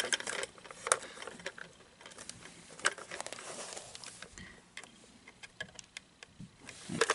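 Hands handling and turning a hard plastic animatronic toy casing: scattered light clicks and knocks of plastic, the sharpest about a second in and again near three seconds.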